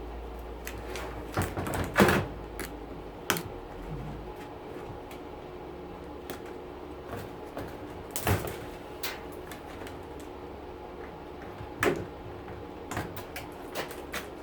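Wire cutters snipping through a dishwasher's insulated copper wiring, amid knocks and clatter of handling the parts. Scattered sharp clicks, the loudest about two seconds in, again around eight seconds and near twelve seconds.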